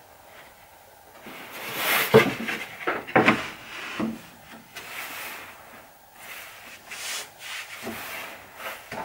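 Plywood boards sliding and scraping over one another and over the table saw top as they are laid in place, with a few light knocks of board on board. The scrapes are loudest about 2 and 3 seconds in, with softer rubs after.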